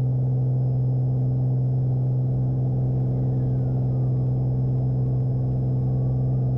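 Beechcraft Bonanza's piston engine and propeller at climb power just after takeoff: a steady, unchanging low drone heard through the cockpit headset intercom, with the highs cut off. A faint gliding whine rises and falls above it in the second half.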